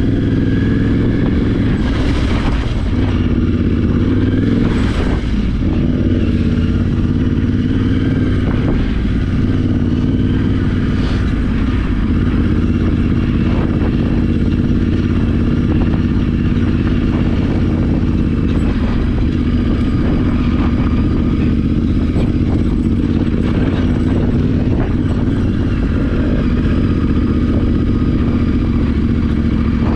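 Yamaha Ténéré 700's parallel-twin engine running at a steady, even pace while the bike is ridden over rough ground, with occasional knocks and clatter from the bumps.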